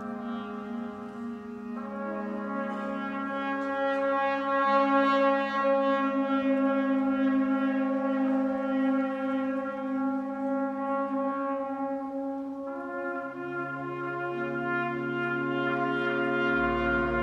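Concert band playing long, held brass chords that change a couple of times. Lower brass come in about three-quarters of the way through, and a very low bass note enters near the end.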